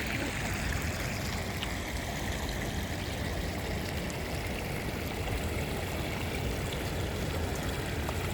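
Steady rush of running water from a small stream, with a low rumble underneath.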